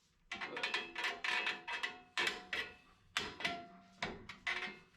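A dozen or so sharp metal-on-metal clinks and clacks, irregularly spaced, some with a short ring: a brake spring tool working against the return springs and hardware of a rear drum brake.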